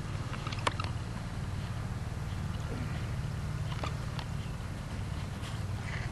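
Small outboard motor running steadily, a low drone, with a few scattered light clicks on top.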